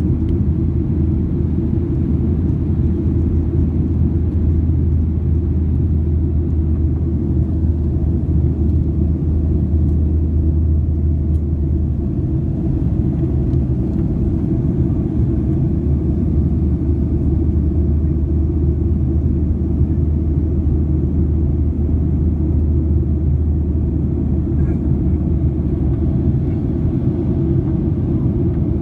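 Steady low rumble of a Boeing 737-800's cabin noise, engine and airflow sound heard from inside the passenger cabin, even throughout with its deepest hum easing slightly about twelve seconds in.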